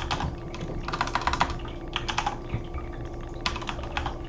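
Typing on a computer keyboard: a few short bursts of keystrokes with pauses between them.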